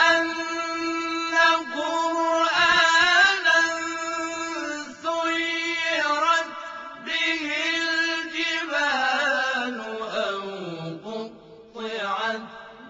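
Male voices chanting Quran recitation in Arabic in chorus. A long note is held steady for most of the phrase with ornamented turns above it, then slides slowly down in pitch. After a brief pause, a new phrase begins near the end.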